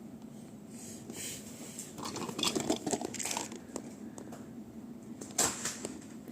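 Scattered small clicks, taps and rustling, bunched together about two seconds in, with one sharper knock near the end.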